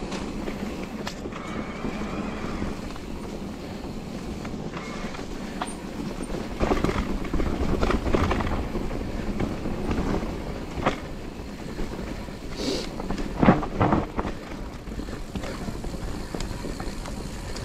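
Electric mountain bike ridden over leaf-covered dirt singletrack: tyres rolling through leaves and earth, with the bike rattling and knocking over bumps, hardest about seven and about thirteen seconds in.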